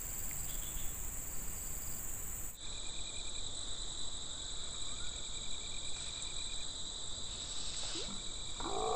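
Chorus of insects: steady high-pitched shrill trilling with a pulsing chirp underneath. A louder pitched voice-like call starts right at the end.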